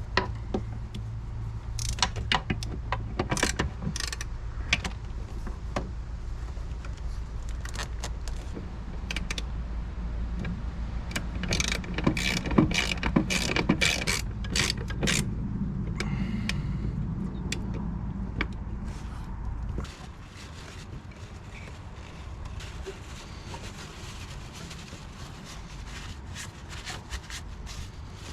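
Irregular metallic clicks and clinks of hand tools working on a car's brake master cylinder mounting, busiest around the middle. A steady low hum underneath stops about twenty seconds in.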